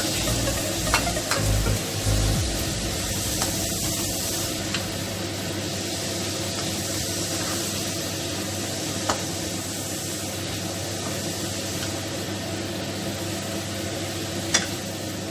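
Shrimp and vegetables sizzling in a hot nonstick wok, stirred with a spatula. There are a few sharp taps against the pan, the clearest about a second in, in the middle and near the end.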